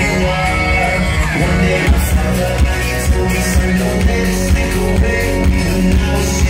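A loud pop-rock song with sung vocals and guitar. A heavy bass-and-drum beat comes in strongly about two seconds in and keeps a steady pulse.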